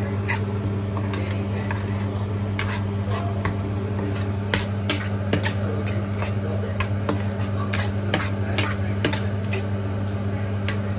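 A metal spoon stirring thick tomato sauce in a stainless steel frying pan, with repeated clicks and scrapes of the spoon against the pan. A steady low hum runs underneath.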